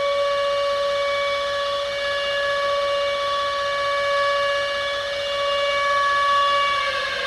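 Air-raid siren holding a steady note, its pitch starting to fall near the end.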